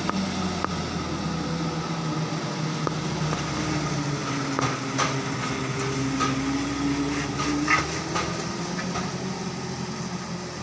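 Diesel engine of a light truck working hard up a steep hairpin climb: a steady, low engine drone that dips slightly in pitch and then rises again as it pulls through the bend. A few short sharp knocks and rattles come in the middle.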